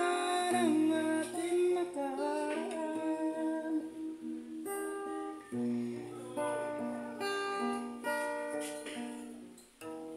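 Acoustic guitar playing a slow instrumental passage between sung lines of a Tagalog love song, with a man's voice holding a sung note at the start.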